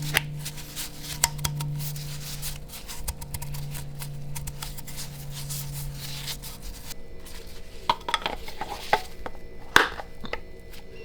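Metal clinks and knocks of hand tools and parts being handled during an oil change, over a steady low hum that stops about seven seconds in.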